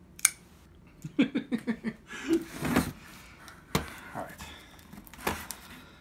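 A knife slitting the packing tape on a cardboard shipping box, with a quick run of short rasping strokes about a second in, then the box being tipped and handled with sharp knocks and cardboard scrapes.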